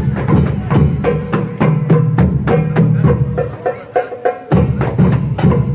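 Marawis ensemble playing: small hand-held marawis drums struck in an interlocking rhythm over the deep hajir barrel drum and frame drums, with a stand-mounted cymbal struck along with them.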